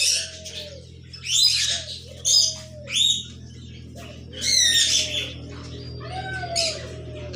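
A pet parakeet giving repeated short, shrill squawking calls, about one a second, each sliding in pitch.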